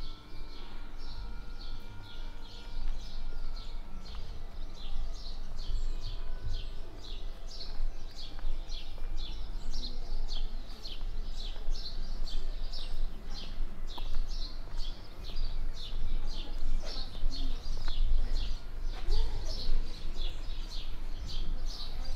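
Small birds chirping without a break, a quick run of short, high, falling chirps at about three a second, over a steady low rumble of outdoor city background.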